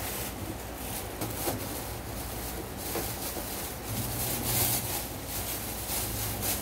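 Thin plastic bag crinkling and rustling as it is pulled open and handled, busiest about four to five seconds in, over a low steady hum.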